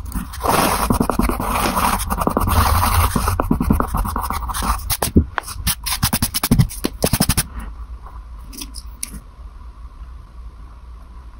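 A hand rubbing and sweeping across drawing paper, brushing off eraser crumbs, in rapid scratchy strokes. About seven and a half seconds in it drops to a few faint scratches.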